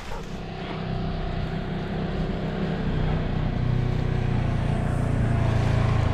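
Ranger XP side-by-side utility vehicle's engine running steadily as it drives up, growing louder as it approaches.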